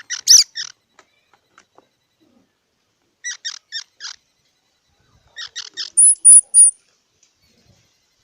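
Squirrel calling in short bursts of four or five quick, sharp chirps, three times over, then three higher-pitched squeaks in a row about six seconds in, which are the loudest.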